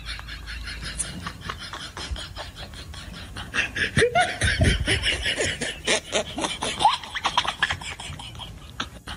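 Laughter-like voices over a fast, clicking beat-boxed rhythm, a dubbed comic sound track, louder from about four seconds in.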